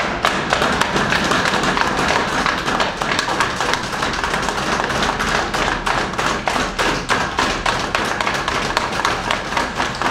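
A group of footballers celebrating in a changing room: fast, steady rhythmic banging and stomping on benches and the floor, the noise of a team marking a win.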